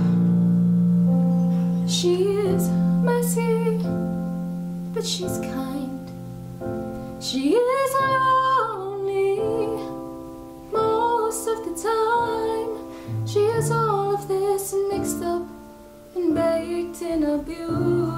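A woman singing solo over soft instrumental accompaniment, her voice sweeping up to a long held high note about halfway through.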